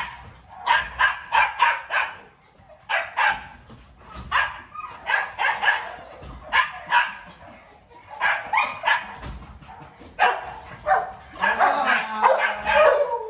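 A dog barking repeatedly, in quick runs of several barks separated by short pauses.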